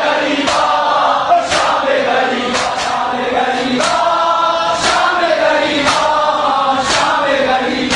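Group of male voices chanting a Shia mourning lament (noha) in unison, with a sharp slap about once a second keeping time.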